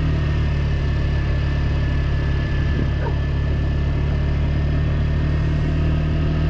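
Small motorbike engine running steadily at low speed, about 7 to 8 miles an hour, with no change in pitch or loudness.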